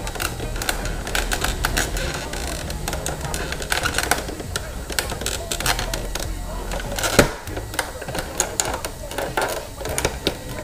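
Irregular rapid clicks, taps and knocks of hard plastic: hands prying and working a Yamaha R15 V3's stock windshield loose from its rubber grommets on the plastic front fairing. There is a sharper knock about seven seconds in.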